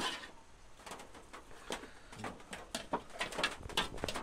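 Scattered light clicks and knocks of a metal utensil and meat against an aluminium cooking pot as boiled meat is lifted out, coming more often after the first couple of seconds. A dove coos in the background.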